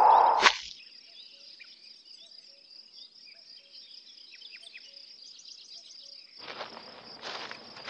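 An arrow's whoosh cuts off in a sharp hit about half a second in. A steady chorus of chirring insects with scattered bird chirps follows. In the last second or so come rustling footsteps through undergrowth.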